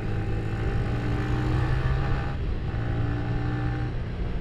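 Yamaha Vixion R's single-cylinder engine running at a steady cruising speed, over wind and road rumble. The engine note drops out briefly about halfway through, then comes back at the same pitch.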